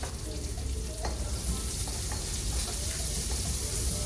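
Onions frying in hot olive oil in a pan, a steady sizzling hiss that grows a little louder about a second and a half in.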